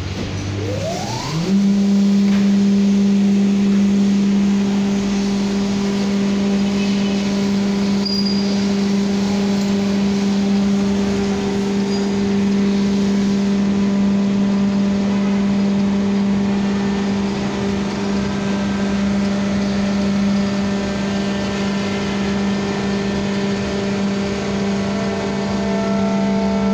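Hydraulic pump test bench starting up: a whine rising quickly in pitch over about a second, then a steady loud hum with a pitched whine as the bench runs a Kawasaki K3V112S hydraulic pump under test.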